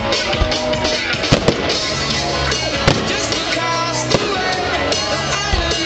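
Show music playing loud and steady, with several firework bangs cutting through it, two close together about a second and a half in and single ones near three and four seconds.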